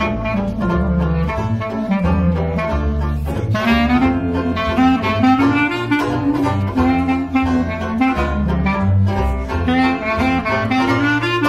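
Traditional jazz trio playing: a clarinet carries the melody over a plucked double bass and a strummed banjo keeping a steady beat.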